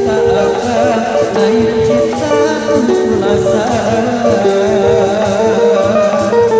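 Loud Sundanese benjang procession music: a lead melody of held notes that step and slide from one pitch to the next, over steady drumming.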